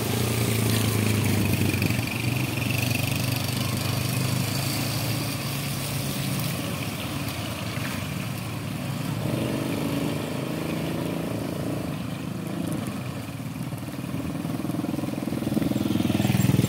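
A motor vehicle's engine running while under way, with road and wind noise; its pitch shifts a few times in the second half as it changes speed, and it gets louder near the end.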